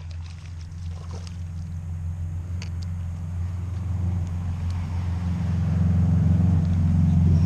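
Low, steady engine hum that grows gradually louder as it approaches, with a few faint clicks.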